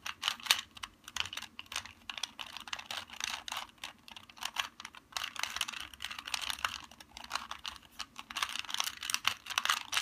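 Plastic 2x2 Rubik's Cube being turned quickly by hand: rapid clicking and clacking of its layers, in quick runs with short pauses between them.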